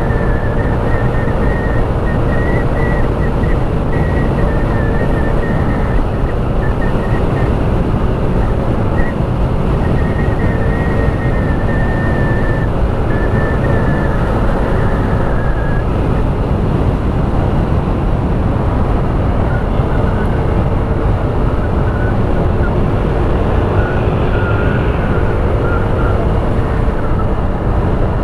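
Motorcycle riding at steady speed: a continuous loud rush of wind and road noise over the engine's running, with a thin high whine wavering along during the first half.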